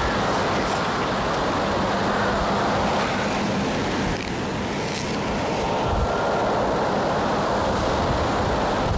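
Steady rushing noise of wind, partly blowing on the microphone.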